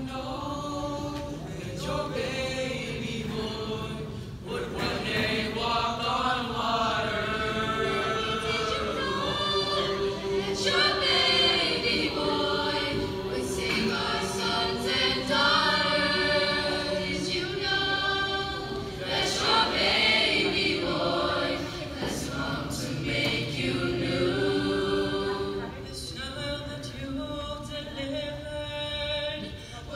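Mixed choir of teenage boys and girls singing a Christmas carol.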